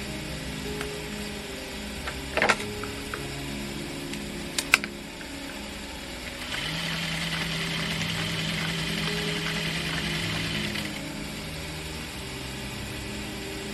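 Juki industrial sewing machine stitching in one steady run of about four seconds, starting about six and a half seconds in. It follows two sharp clicks, about two and a half and just under five seconds in.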